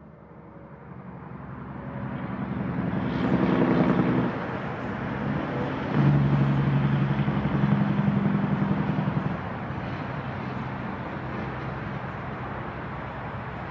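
Road traffic passing: vehicle engines and tyre noise build up, loudest about three to four seconds in and again from about six to nine seconds in, then settle to a steady hum.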